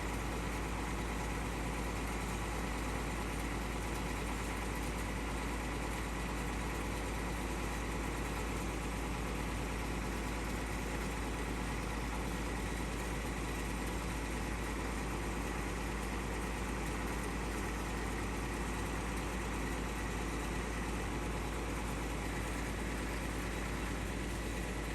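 Bulldozer's diesel engine idling steadily, its even running unbroken throughout.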